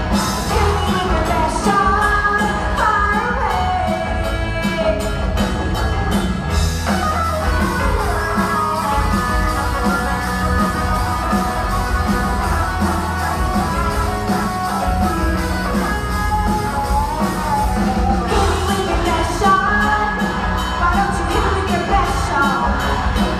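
A group of performers singing over an upbeat pop backing track for a stage song-and-dance number. The crisp beat drops out about six and a half seconds in and comes back near the end.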